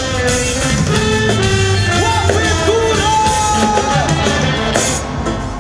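Live reggae band playing with guitars, bass and drums, a singer holding long notes over it; the music drops away near the end.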